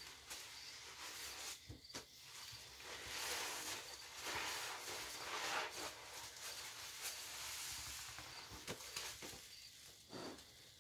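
Soaked sponges squeezed by rubber-gloved hands in a basin of thick suds: wet squelching with the fizzing crackle of foam, loudest about halfway through.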